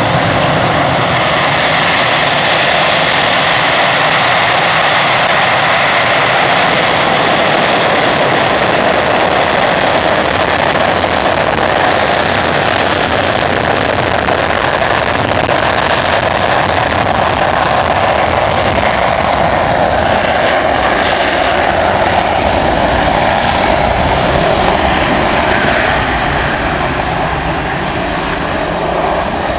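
Panavia Tornado's twin RB199 turbofans running at full power with afterburners lit during the take-off roll: a loud, steady jet noise that eases slightly near the end as the jet moves off down the runway.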